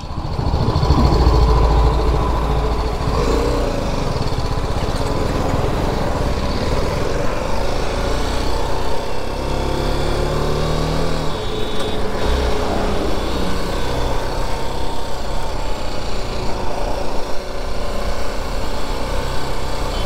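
BMW G 310 GS's 313 cc single-cylinder engine pulling away and riding, its note rising as it accelerates and dropping off sharply about eleven seconds in, then running steadily.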